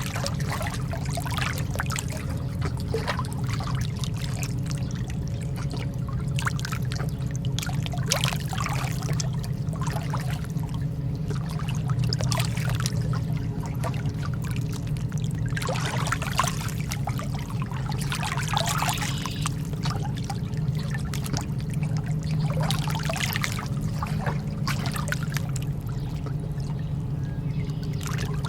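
Calm sea water lapping and trickling in small waves, with splashy swells every few seconds over a steady low rumble.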